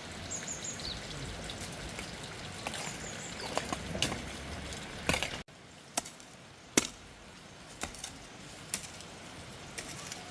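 Digging in garden soil: a steady scraping hiss that stops abruptly about five seconds in, then sharp single strikes of a digging tool into the earth, about one a second.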